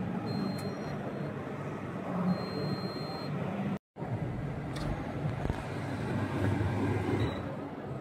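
Steady exhibition-hall din: a low, continuous crowd and hall murmur. Two faint, high electronic beep tones sound in the first half. The sound drops out briefly just before four seconds in.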